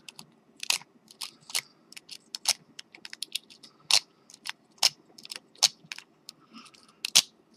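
Lock pick being zipped through the pin tumbler cylinder of an Ikonic deadbolt: a run of sharp metallic clicks, about two or three a second at uneven spacing, as the pick is snapped out across the pins under tension to bounce them to the shear line.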